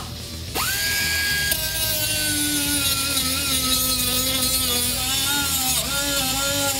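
Air-powered angle grinder with a small abrasive disc grinding plug welds flush on a car's steel floor pan. It spins up about half a second in, then whines steadily, the pitch sagging and wavering as the disc is pressed onto the welds.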